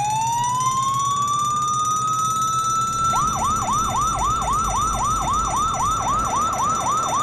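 Police car siren: one long wail rising in pitch over the first three seconds, then switching to fast repeated sweeps, about three a second.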